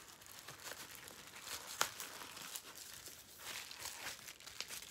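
Soft crinkling and rustling of packaging being handled, with a few light clicks, one sharper about two seconds in.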